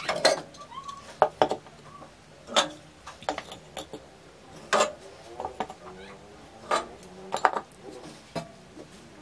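Metal burner caps of a Cetron gas stove being lifted off and set down, a series of sharp clinks and clatters coming irregularly about every second.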